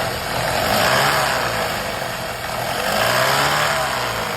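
Audi/VW EA888 turbocharged four-cylinder engine running with its abnormal noise, the sound rising and falling in pitch and loudness about every two and a half seconds. The mechanic puts it down to oil pressure bleeding off through worn intake and exhaust camshafts, and the noise stops when the VVT solenoid is unplugged.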